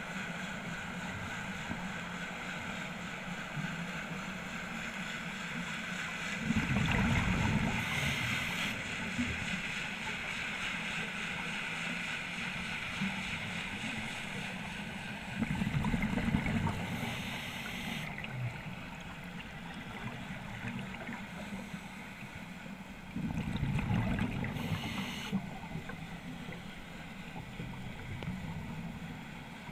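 Scuba diver breathing through a regulator, heard underwater: three rushes of exhaled bubbles about eight seconds apart over a steady hiss.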